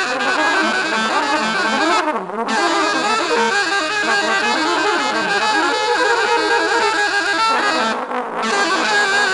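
Free-jazz saxophone playing a dense, continuous line with quickly shifting pitches, broken by two short pauses, about two seconds in and again near the end.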